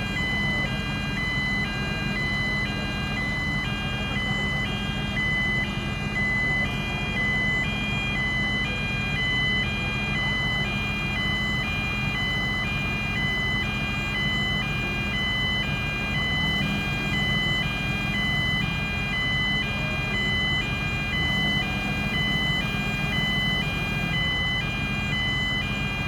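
Heavy construction machine's diesel engine running steadily under a two-tone electronic warning alarm that beeps back and forth between two pitches, about two notes a second, without a break.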